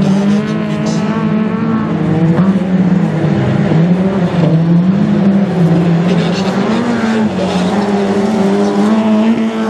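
Engines of autocross race cars revving hard on a dirt track. Several engines overlap, their pitch repeatedly climbing and dropping with throttle and gear changes.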